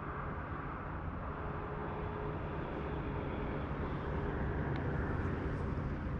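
Steady low rumbling noise of wind across the camera microphone, with a faint steady hum underneath.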